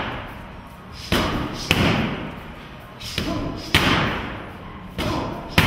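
Boxing gloves smacking a trainer's focus mitts. The hits come in pairs about every two seconds, each with a short echo off the gym walls.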